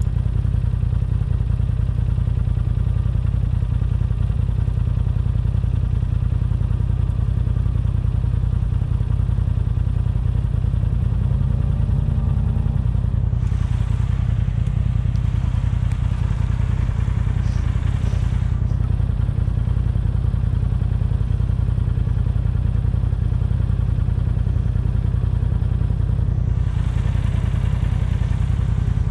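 Off-road vehicle running while riding over sand, a steady low rumble throughout. Stretches of louder hiss come in a little before halfway and again near the end.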